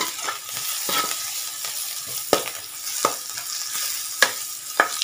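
Sliced onions and whole spices sizzling in hot oil in a kadhai as they brown for a kadhi tadka, with a metal spoon stirring and scraping through them and clicking against the pan a few times.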